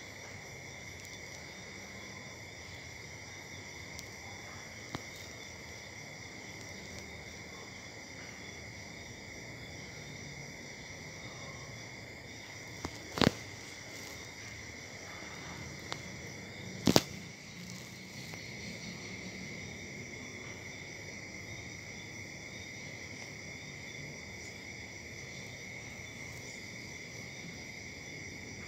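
Steady high-pitched trilling of insects, such as crickets. Near the middle, two sharp clicks about four seconds apart stand out above it.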